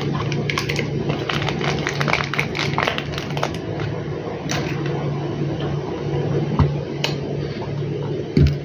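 Irregular small clicks and crinkles of a Strepsils lozenge pack being handled, thickest in the first few seconds, with a few single clicks later and a louder knock near the end, over a steady low hum.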